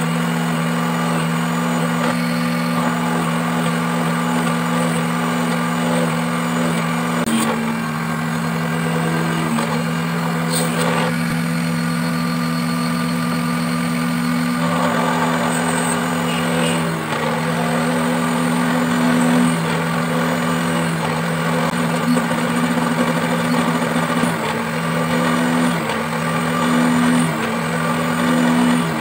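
Small bench drill press running with a steady motor hum, its fine bit drilling a row of small holes through thin bamboo strips.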